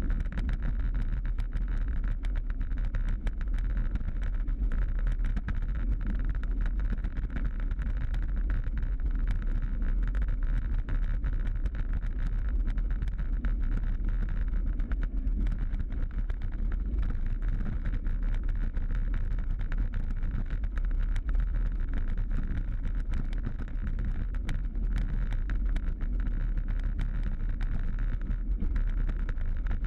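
A bicycle rolling along rough, cracked and patched asphalt, heard through a bike-mounted camera: steady wind rush on the microphone and tyre noise, with many small rattles and ticks as the bike jolts over the broken surface.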